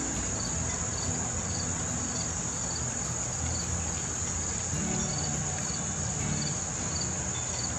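Crickets chirping: a continuous high trill with a separate chirp repeating about twice a second, over a low background rumble.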